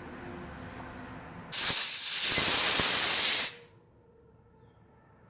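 Compressed-air blow gun from an air hose fired in one hissing blast of about two seconds, starting and stopping sharply, blowing out a GY6 carburetor's small parts and passages to clear gum left by stale fuel.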